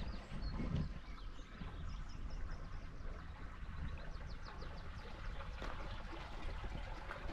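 Wind rumbling on the microphone, with scattered small bird chirps.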